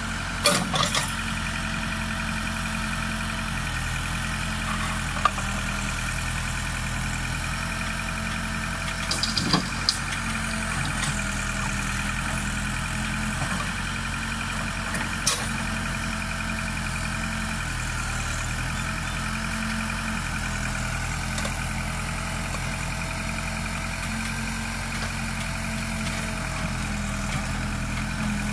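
Case backhoe loader's diesel engine running steadily, with a few short sharp knocks standing out above it.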